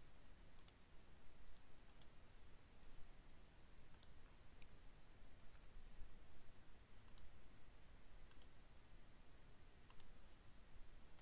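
Computer mouse clicking: sharp single clicks every second or two, several of them in quick pairs, over faint room hiss.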